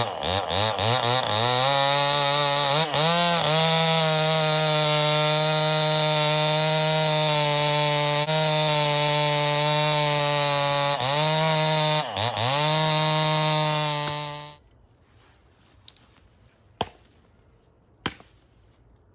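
Two-stroke Homelite chainsaw running at high revs while cutting through a log: it winds up at the start, dips briefly twice and recovers, and cuts off about three-quarters of the way through. After that come a few sharp chops from an axe striking through branches.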